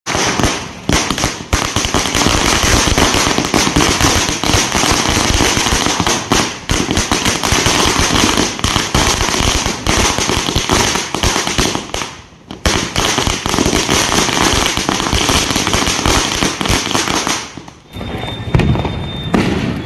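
Strings of firecrackers going off on a street: a dense, rapid, continuous crackle of bangs. It breaks off briefly about twelve seconds in and stops a couple of seconds before the end.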